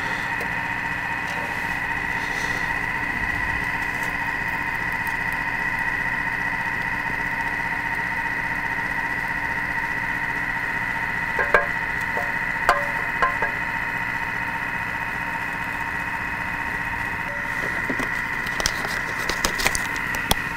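Thermomix food processor running steadily on low speed while it heats sugar syrup to 120 °C: a constant motor hum with a steady high whine. A few light taps come about halfway through and a cluster of small clicks near the end.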